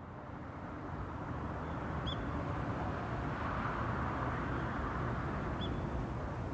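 Steady outdoor ambient noise, climbing a little over the first second, with two short bird chirps about two and five and a half seconds in.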